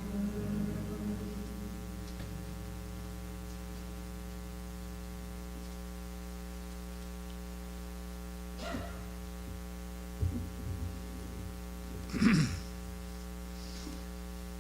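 Steady electrical mains hum from the sound system, with the last of the hymn's singing fading out in the first second or so. A few brief sounds break in, the loudest about 12 seconds in.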